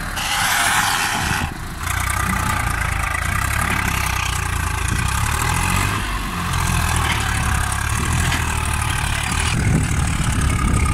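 Swaraj 744 FE tractor's three-cylinder diesel engine running steadily under heavy load while hauling a trolley loaded with sand.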